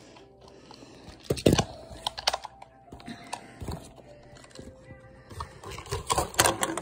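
Handling noise on a phone's microphone: irregular clicks, knocks and rustling, loudest about one and a half seconds in and again near the end.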